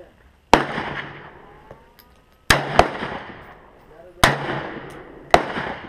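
AR-15 rifle in 5.56 firing five single shots at uneven intervals, two of them in quick succession near the middle, each shot echoing away.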